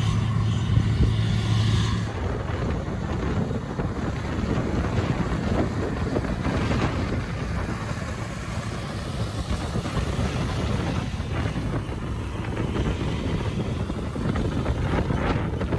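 White 4-270 four-wheel-drive tractor's diesel engine running steadily under load while pulling a strip-till bar. Its drone is clear for about two seconds, then is largely covered by heavy wind buffeting on the microphone.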